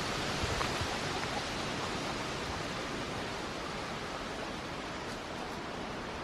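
Wind blowing through the forest treetops overhead: a steady, even rush.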